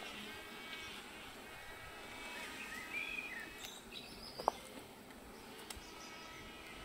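Honeybees on a hive frame buzzing in a steady faint hum. A brief high chirp sounds near the middle, and a single sharp tick about four and a half seconds in.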